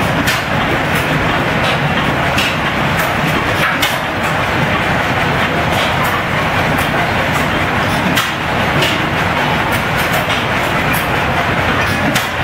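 Many antique flywheel stationary gas engines running together: a dense, steady mechanical clatter with irregular sharp pops and clicks several times a second.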